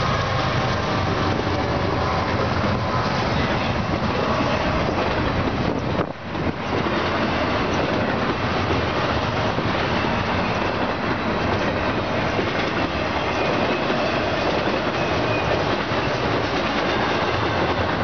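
Double-stack intermodal freight train's container well cars rolling past, a steady noise of wheels on rail, with a brief dip in level about six seconds in.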